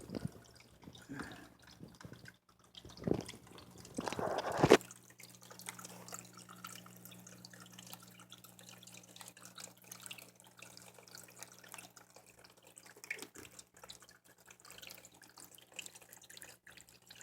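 Small man-made waterfall in a reptile tank trickling and dripping steadily, with a low steady hum underneath. A few louder bumps sound in the first five seconds, the loudest about four and a half seconds in.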